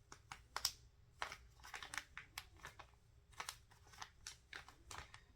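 A packet of lint-free nail wipes being handled and felt in its packaging: faint, irregular crinkling and rustling with many small clicks and taps.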